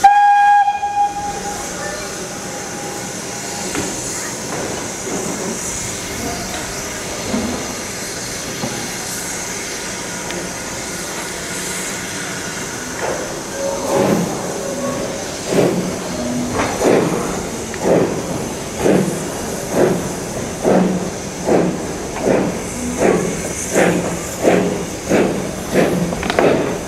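A BR Standard Class 2 steam locomotive gives a short whistle, then steam hisses steadily while it stands. About halfway through, its exhaust beats start, slow at first, then coming faster and louder as it starts the train away from the station.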